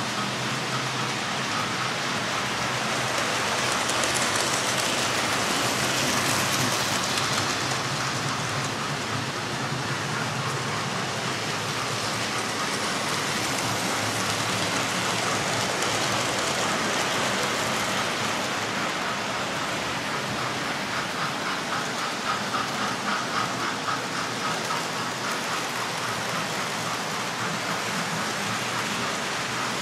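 Several model railway trains running on the layout: a steady whirring rattle of motors and wheels on the track, with a stretch of rapid clicking over rail joints about two-thirds of the way through.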